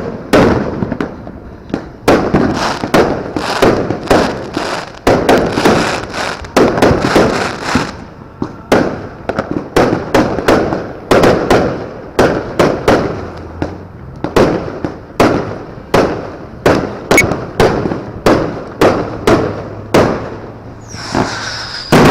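Fireworks going off in rapid succession, sharp bangs about two a second with crackling between them. Near the end a high whistle joins in.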